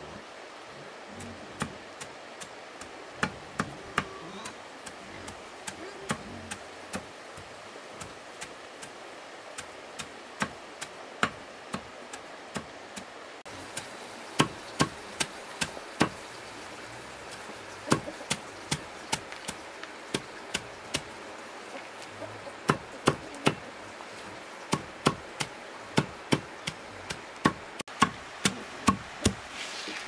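Wood being chopped with a blade: many sharp, separate strokes, irregularly spaced and often coming in quick runs of three or four.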